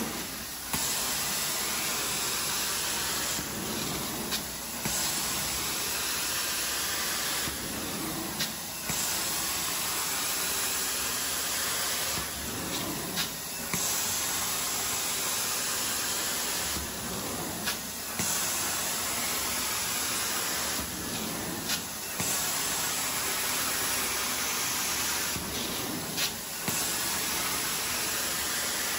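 Hot-water extraction carpet-cleaning wand spraying and sucking water out of the carpet with a loud, steady hiss. It is broken every four seconds or so by a short dip with a brief pop, as each stroke ends and the next begins.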